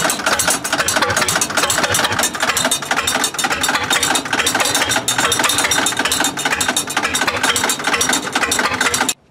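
Gasoline engine of an old Lincoln arc welder running loud, with a dense, rapid clattering knock; the sound cuts off abruptly near the end.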